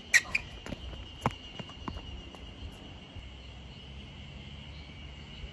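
Tennis ball struck by rackets in a rally: a sharp pop just after the start and another about a second later, then a few fainter ticks. A steady, high insect drone runs underneath.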